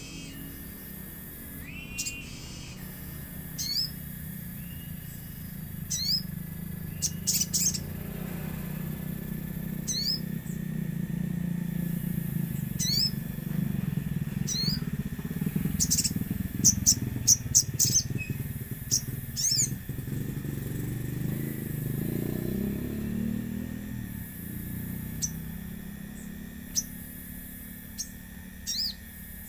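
Sogon birds calling: short, sharp chirps that sweep down in pitch, scattered irregularly and thickest in the middle, over a steady low rumble.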